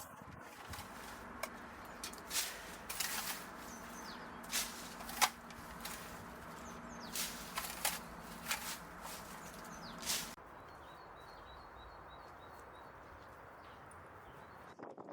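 Sharp snaps and rustles of branches and leaves being cut and handled during garden pruning. About ten seconds in this gives way to quieter outdoor background with a bird chirping several times in a row.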